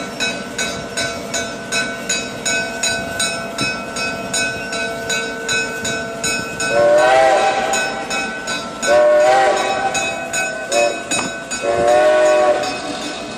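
Diesel locomotive bell ringing steadily, about three strokes a second, while the locomotive's multi-note air horn sounds four blasts, long, long, short, long, the standard signal for a grade crossing.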